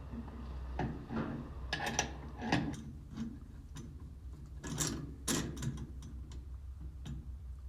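Scattered metallic clicks and knocks of a bolt and bracket being handled and fitted by hand on a slurry tanker, with two louder knocks a little after halfway, over a steady low hum.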